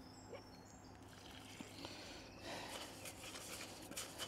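A hand stirring small fishing pellets freshly wetted with water in a plastic bait tub: a soft gritty rustle of many small clicks that starts a little over halfway in.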